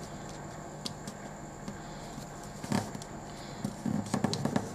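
A sheet of A4 paper being folded and creased by hand. There is a brief rustle about three seconds in, then a run of quick crinkling scrapes near the end as fingers press along the fold.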